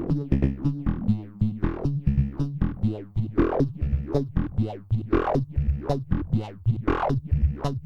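Eurorack synthesizer sequence played through the SetonixSynth Marsupial voltage-controlled filter: a quick run of short notes, each opening bright and quickly closing down as the envelope sweeps the filter's cutoff, over a steady low tone.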